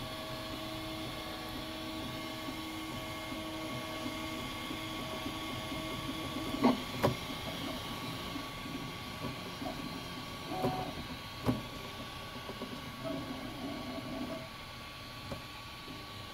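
Ultimaker 2+ 3D printer at work: its stepper motors hum in steady tones that break off and change pitch as the print head moves, over a constant higher whine. A few sharp knocks come in the second half.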